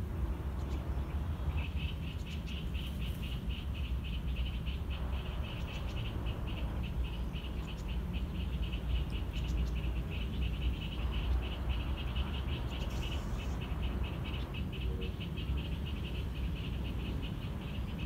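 A chorus of frogs calling continuously in fast, high-pitched pulses, over a steady low rumble.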